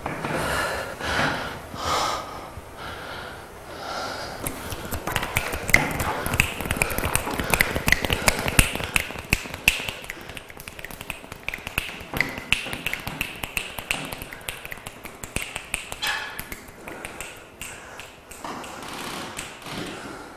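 Breathy gasps for the first few seconds, then a dense run of rapid clicks and taps for about ten seconds that thins out, with breathy gasps returning near the end.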